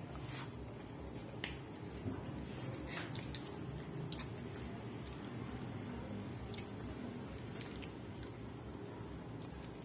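Faint wet chewing and mouth sounds of people eating soft durian flesh by hand, with a few sharp clicks scattered through, over a steady low background noise.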